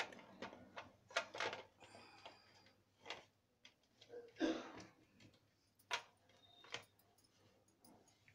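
Faint, scattered light clicks and taps as hands arrange kachoris and a small bowl on a plate, with a short, louder rustle about halfway through.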